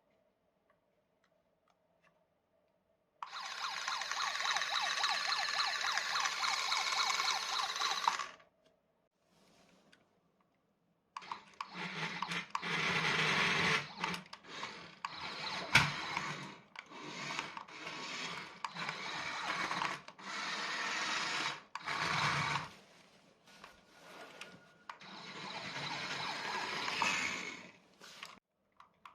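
Small electric motor of a radio-controlled toy car whirring in stop-start bursts as it is driven, with one sharp knock partway through. It starts after about three seconds of near silence, with one long run followed by many short ones.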